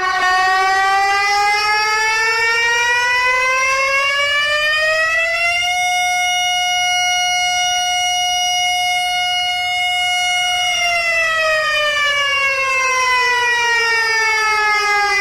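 Warning siren played in reverse: one long wail that rises in pitch over about six seconds, holds steady for about five, then falls again.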